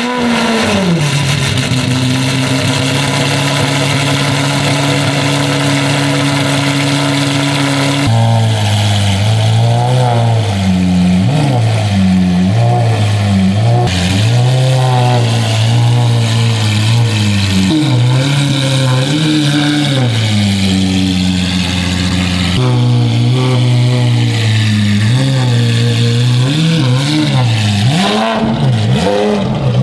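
Lamborghini Aventador Ultimae's 6.5-litre V12, through a Valvetronic Designs F1 race exhaust, on a cold start. It catches and settles into a steady fast idle, then from about a third of the way in it is blipped again and again, the revs rising and falling each time.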